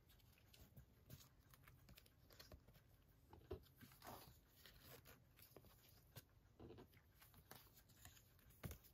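Faint rustling and light ticks of a stack of high-gloss photo prints being handled and leafed through by hand, over near silence.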